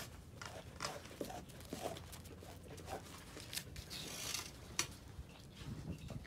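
A black Canadian wolf biting and chewing a raw chunk of pork, with short, irregular bites and crunches and a brief rustle about four seconds in.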